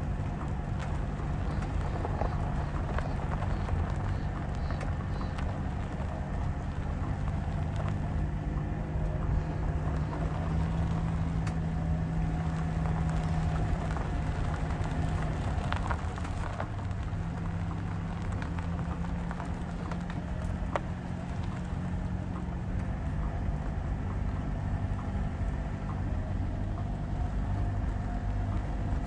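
Car driving slowly on a dirt road: a steady engine hum with tyres crackling and popping over dirt and gravel, and a few sharp clicks of stones. The engine note shifts pitch about halfway through.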